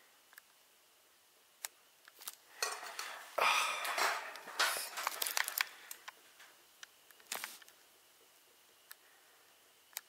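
Close handling noise: a few sharp clicks and, from about three to six seconds in, a stretch of rustling and scraping.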